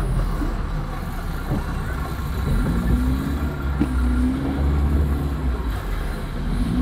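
Steady low rumble of a car's engine and running noise, heard from inside the cabin while it drives slowly through floodwater.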